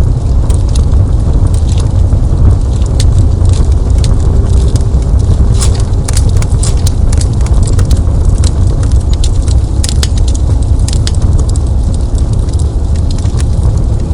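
Wood fire burning in a fireplace: frequent sharp crackles and pops over a steady low rumble, with the crackling thickest in the middle stretch.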